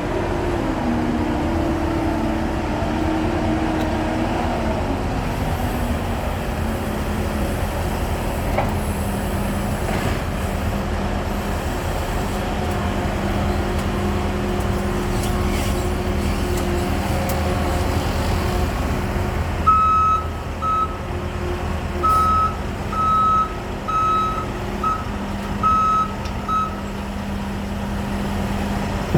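Skid steer's diesel engine running, its revs dropping over the first few seconds and then holding steady. About two-thirds of the way through, a backup alarm sounds a string of about eight high beeps, unevenly spaced, as the machine reverses.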